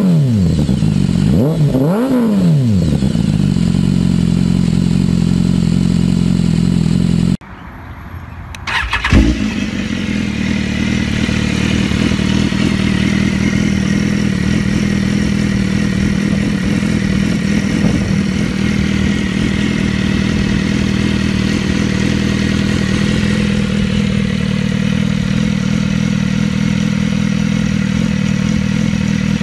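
BMW S1000RR inline-four superbike exhausts. The engine is blipped twice in the first few seconds, each rev falling straight back to idle. After a brief drop in level at a cut, there is a sharp rev burst, and then a steady idle runs on to the end.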